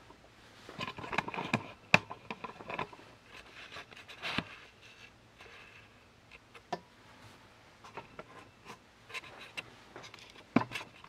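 Hands handling a rifle's wooden stock and metal parts: quiet scraping and rubbing with a few sharp clicks and knocks, the loudest click near the end.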